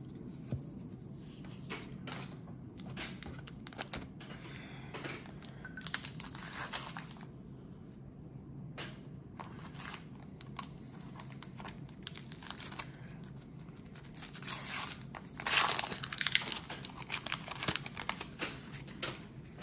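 Paper wrapper of a 1991 Donruss baseball card pack being torn open and crinkled, in several bursts, loudest a little after the middle.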